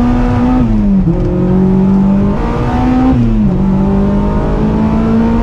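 Honda Civic Type R (EP3) engine heard from inside the cabin, pulling hard under load: its note climbs and then drops back sharply twice, then holds steady.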